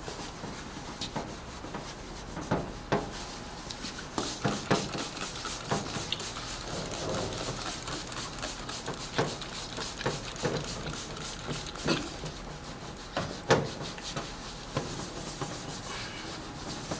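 Cloth rags rubbing and scrubbing on a street sign's face to wipe off graffiti loosened by a remover, with irregular sharp taps and knocks throughout.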